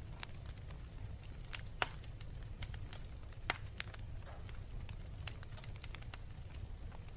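Wood fire burning in a fireplace: a steady low rumble of the flames with irregular sharp crackles and pops, two louder pops about two seconds and three and a half seconds in.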